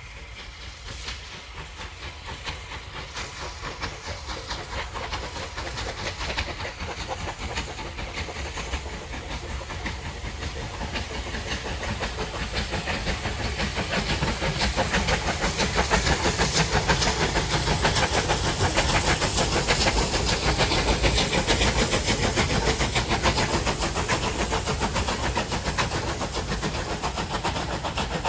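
Two three-cylinder Bulleid light Pacific steam locomotives, Battle of Britain class 34070 Manston leading West Country class 21C127 Taw Valley, working a train past as a double header. A fast, steady exhaust beat mixed with hissing steam grows louder as they draw near and stays loud for the second half.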